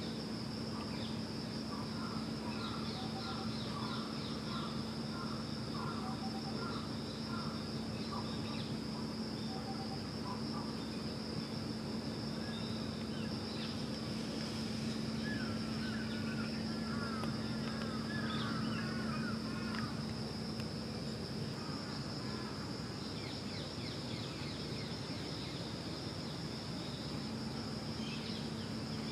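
Steady, high-pitched insect chirring with a low, steady hum beneath it. Short bird chirps come in runs in the first few seconds and again around the middle.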